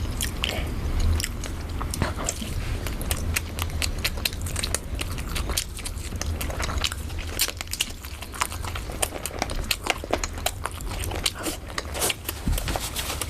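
Close-miked eating of rice with chicken and mutton curry: steady chewing and biting, with many quick mouth clicks one after another over a low hum.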